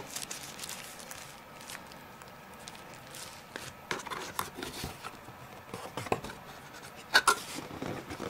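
Paper and cardboard being handled: scattered light rustles and taps as printed leaflets and the open box are moved about, with a sharper tap about seven seconds in.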